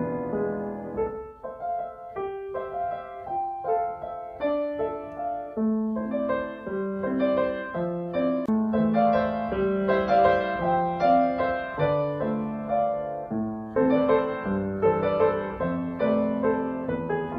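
Background piano music, a gentle melody of single notes over held chords.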